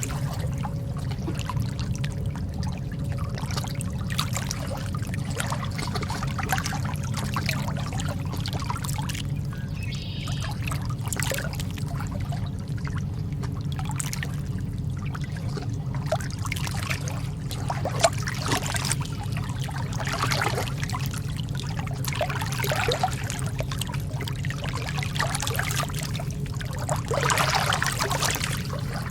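Calm sea water lapping and trickling in small waves over a steady low rumble, with a slightly larger wash near the end.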